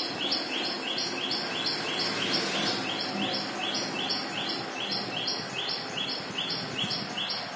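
A rapid, even chirping in two alternating high notes, repeated several times a second at a steady rate. Under it is a soft scratching of a marker writing on a whiteboard.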